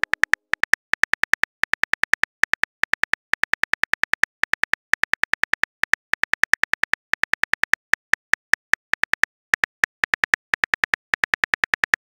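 Phone keyboard key-click sound effect for on-screen typing: a rapid, even run of sharp clicks, about seven a second, with a few short gaps.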